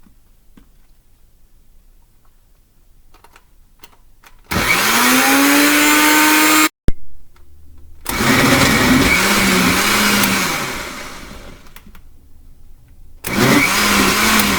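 Electric blender crushing pineapple chunks, run in three separate bursts to only partially break them up. Each time the motor spins up with a rising whine, then runs with a wavering pitch as it works through the fruit. The first burst cuts off suddenly, and the second winds down slowly.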